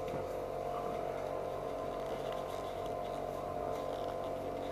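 A steady hum with several fixed tones, with faint rustling and light taps from a motorcycle seat being handled and fitted over the rear fender.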